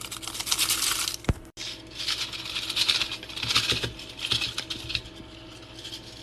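Thin 3D-printed plastic hair strands and their support shell crackling and clicking as the print is worked out of the shell, in several bursts of rapid small clicks.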